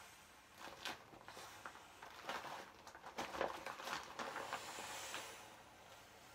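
Small inflatable vinyl dog being squeezed and folded by hand as it is deflated, its plastic crinkling and rubbing in irregular rustles, loudest a little past the middle. A faint hiss of escaping air fades out at the start.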